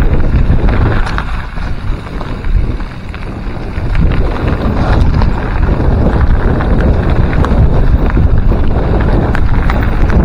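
Wind buffeting the microphone and the rattle of a mountain bike rolling fast down rocky dirt singletrack, with many short clicks and knocks from the bike over the stones. It eases briefly about two seconds in.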